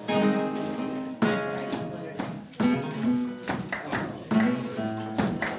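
Flamenco guitar playing tangos: strong strummed chords about every second or so, with quick plucked notes between them.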